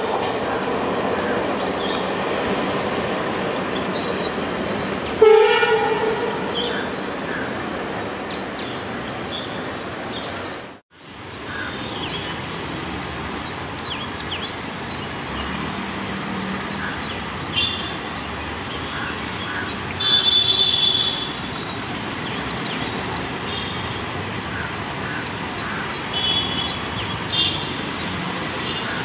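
Passing train running on the track, with one short train horn blast about five seconds in. After a sudden cut, a steadier background of a train approaching in the distance, with short high bird calls scattered over it.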